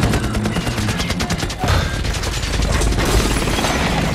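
Film soundtrack of rapid machine-gun fire, a fast even rattle of shots that stops about a second and a half in, followed by a dense low rumble with crashing and smashing debris under film music.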